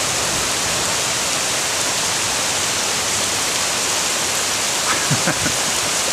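Heavy tropical rain pouring steadily onto thatched roofs and garden foliage, with runoff streaming off the edge of a thatched eave. A brief faint sound comes through about five seconds in.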